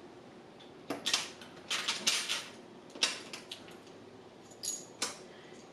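Intermittent crinkling and light clicking of a small plastic bag and the plastic sewing-machine presser feet inside it being handled, in several short bursts.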